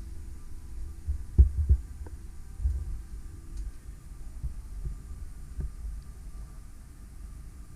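Several dull, low thumps over a steady low rumble, the loudest pair about a second and a half in and another near three seconds.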